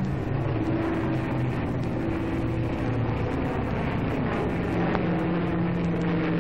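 Aircraft piston engines droning: a rough steady noise with a low hum that steps up in pitch about two-thirds of the way through.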